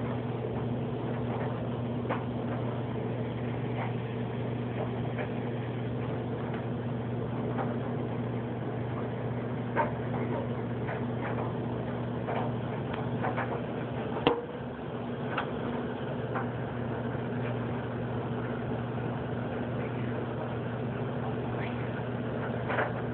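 A steady low hum runs throughout, with scattered faint clicks and one sharper click about fourteen seconds in.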